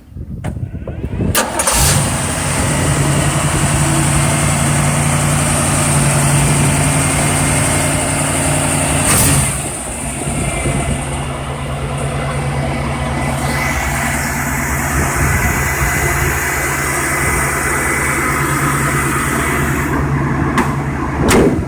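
1979 Jeep CJ5's AMC 304 V8 cranked over by the starter and catching about two seconds in, then idling steadily through dual Flowmaster exhaust. It is blipped briefly about nine seconds in and again near the end.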